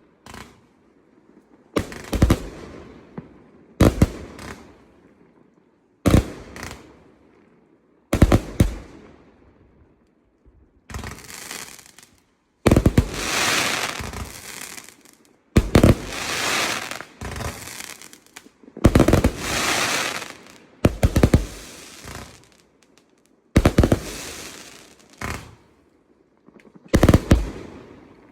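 Hallmark Dreadnought 296-shot firework compound firing: single sharp bangs about every two seconds at first, then from about eleven seconds in, louder volleys of rapid shots with long crackling tails.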